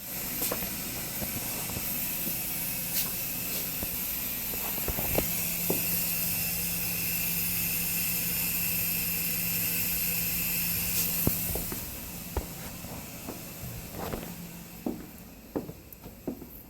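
Steady hissing from a leaking gas water heater that has failed and is running hot water out of it. The hiss drops away about twelve seconds in, leaving a few clicks and light handling knocks.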